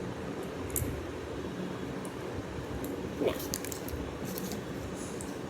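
Faint light clicks and taps of small plastic Lego bricks and a small spring being handled and fitted together, over a steady background hiss.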